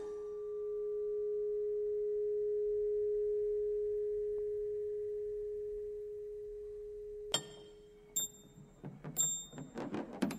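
A steady metallic ringing tone from loose car parts, swelling and then slowly fading. It cuts off about seven seconds in. A run of sharp metal clinks and knocks follows as the parts strike one another.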